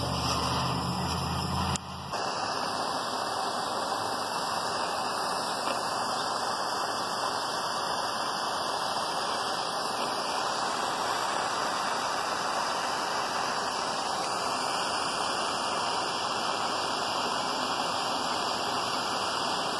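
Handheld gas torch burning with a steady hiss, its flame heating a steel high-pressure diesel fuel line for silver brazing. The hiss breaks off briefly about two seconds in, then carries on evenly.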